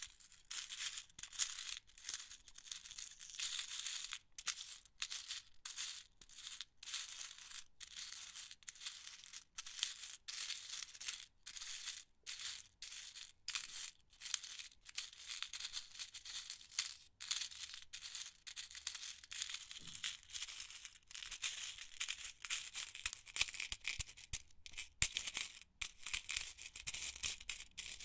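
A box of 150 metal office pins rattling, the pins shifting and clattering against each other and the box in uneven spurts with brief breaks.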